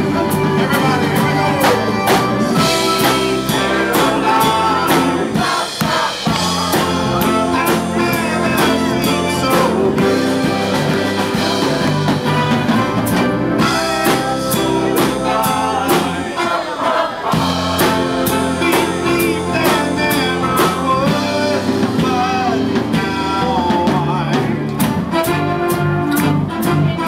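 Live band of keyboard, electric guitar, bass, saxophone and drum kit playing an upbeat song, with the drums keeping a steady beat.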